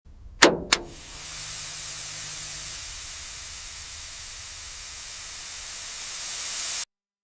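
Two sharp clicks, then a steady high hissing spray for about six seconds that cuts off suddenly.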